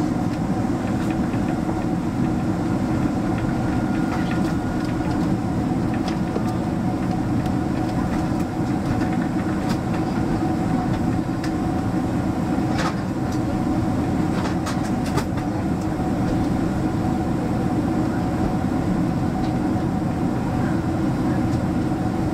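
Steady cabin roar of a Boeing 767-300 in flight on approach: engine and airflow noise, with a faint steady hum above it and a few faint ticks.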